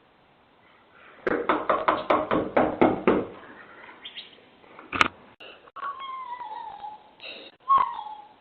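Rapid pounding on a front door, about eight knocks in two seconds, then a single sharp bang. Then a frightened girl's high, falling whimpering cries.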